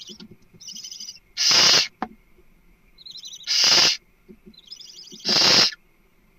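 Barn owl calling: three harsh, hissing screeches about half a second long, roughly two seconds apart, each led in by a quieter burst of rapid high chittering.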